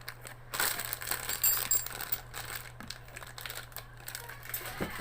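Small metal router accessories being handled and set down: a quick run of clinks and light clattering, with some rustle of packaging, busiest in the first couple of seconds and then a few scattered clicks.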